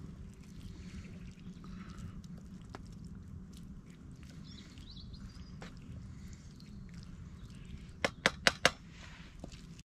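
Wooden spoon working rice in a curry pan on a Trangia spirit stove, with faint light scrapes and clicks over a steady low hum. About eight seconds in come four sharp knocks in quick succession, the spoon rapped against the pan.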